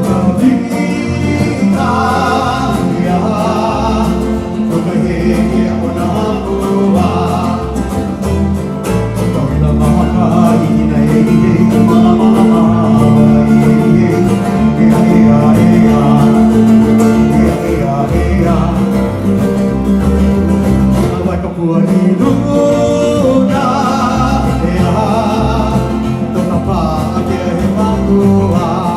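A song with singing over plucked-string accompaniment, playing continuously.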